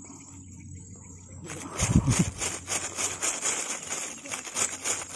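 Insects chirping in a steady high drone. About a second and a half in, a rapid, irregular run of rustling and scraping noises starts, with a short low thump-like sound near two seconds.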